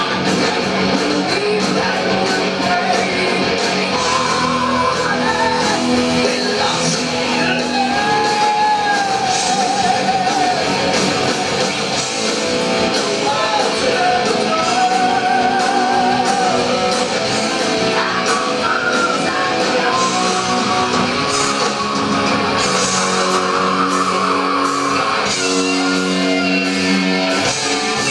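Heavy metal band playing live: distorted electric guitars, bass and drums under a sung vocal line with wavering held notes. Near the end the band settles into long held chords.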